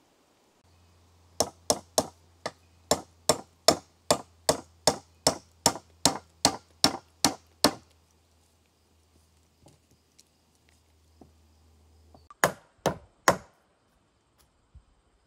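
A hand tool striking the wooden rungs of a log ladder: a fast, even run of about seventeen blows, roughly two and a half a second, then a pause and three more blows near the end.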